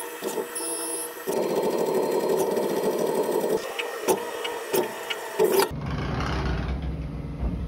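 Haas Mini Mill CNC milling a metal part under flood coolant: a steady spindle and cutting sound with several sharp ticks toward the end. After about five and a half seconds it changes abruptly to a low, steady machine hum.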